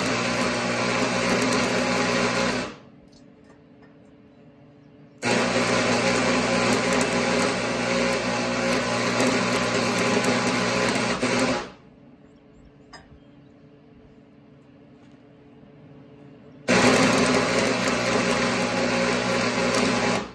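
Stick arc welder laying weld beads on a steel tractor back blade: the arc runs steadily in three passes, stopping twice for a few seconds between them.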